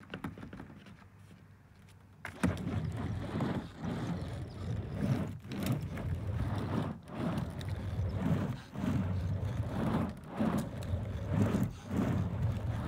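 Skateboard wheels rolling back and forth on a wooden mini ramp: a sharp clack about two seconds in as the board drops in, then a rumble that swells and fades about every second and a half with each pass across the ramp.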